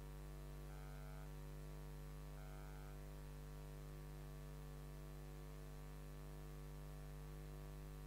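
Steady electrical mains hum with its overtones under a faint hiss.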